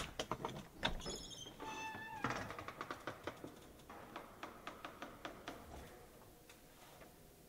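A door latch clicks, then the door's hinges give a short, meow-like pitched creak. A run of soft footsteps follows and fades away.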